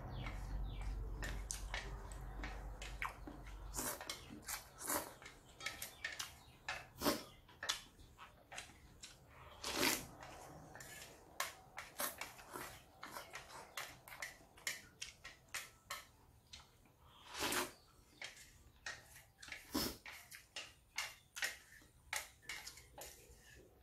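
Close-up slurping and chewing of instant noodles in irregular short bursts, with a few louder slurps. A low hum underneath stops about four seconds in.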